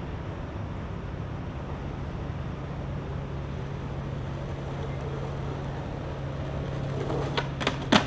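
Skateboard wheels rolling over pavement, a steady rumble over a low city hum. Near the end come a few sharp clacks of the board, the loudest right at the end.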